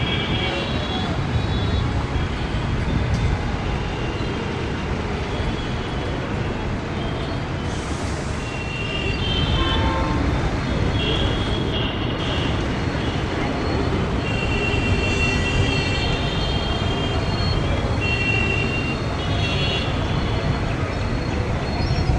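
Distant low, steady rumble of an Airbus A330's jet engines at take-off power as it rolls down the runway, growing a little louder about nine seconds in. Short high chirps come and go over it.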